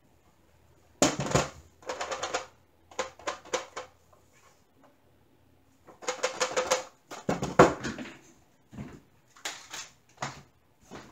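Small wooden frame handled and turned over on a wooden table: repeated short bursts of rapid clicking and rattling, as its loose back panel and front shift in the frame, with the loudest bursts about a second in and near the eight-second mark.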